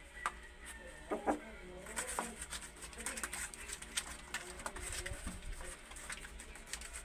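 Young puppies, about a month old, giving a few short, high whimpering squeaks, with light clicks and scratching of paws on cardboard.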